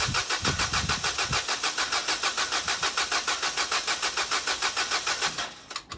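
Vauxhall Corsa E petrol engine being cranked by its starter motor, an even rapid churning of about five beats a second, with a few heavier low thumps in the first second and a half. It turns over on starting fluid sprayed into the intake but does not keep running, and the cranking stops about five and a half seconds in.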